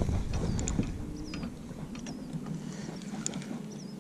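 Short bird chirps recurring every second or so over faint outdoor background noise, with a low rumble that drops away about a second in.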